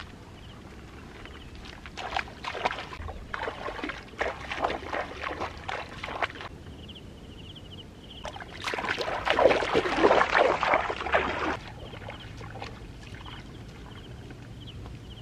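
Shallow pond water splashing and sloshing as a person wades barefoot through it, in uneven bursts, with a louder, busier stretch of splashing about two-thirds of the way through.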